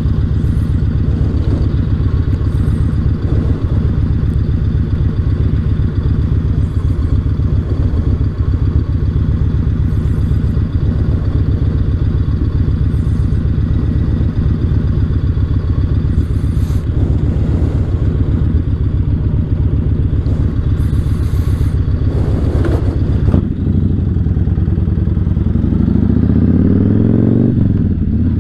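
2008 Yamaha Raider's 113-cubic-inch V-twin running at a steady cruising pace through its debaffled stock exhaust. About five seconds before the end the note dips briefly, then climbs steadily as the engine revs up.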